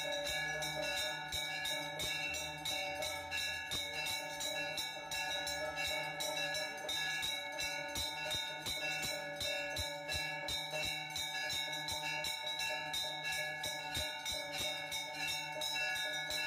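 Hand bell rung rapidly and without a break during an aarti, about four to five strokes a second, its ringing tones held steady between strokes.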